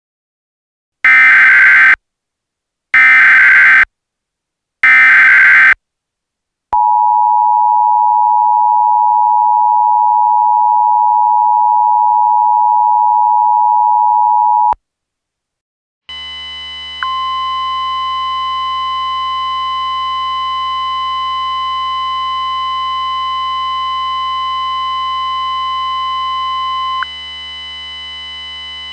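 Emergency Alert System tones: three short bursts of screeching SAME header data, then the steady two-tone EAS attention signal held for about eight seconds. After a brief pause, a steady humming drone starts, and a single steady tone sounds over it for about ten seconds.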